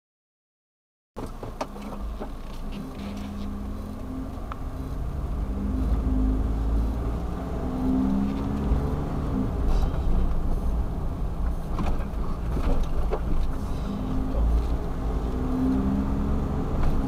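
Silent for about a second, then a kei van driving, heard from inside the cabin: a steady low engine and road rumble with an engine note that rises and falls.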